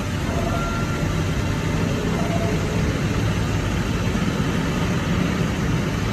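A steady, low engine hum, like a large engine or machine idling, which cuts off abruptly at the end.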